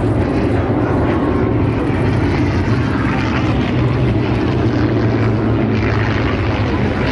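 P-51 Mustang's V-12 piston engine and propeller giving a steady drone as the fighter flies past and banks overhead.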